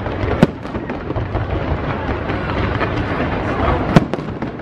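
Fireworks display: a continuous barrage of shells bursting and crackling, with two sharp bangs, one about half a second in and one near the end.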